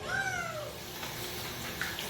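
A domestic cat meowing once, a single meow that rises and then falls in pitch and lasts under a second.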